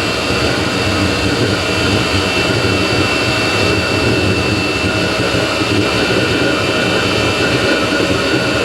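Chinese diesel heater running steadily at full temperature on pure engine oil: its combustion fan and burner make an even rushing noise with a steady high whine.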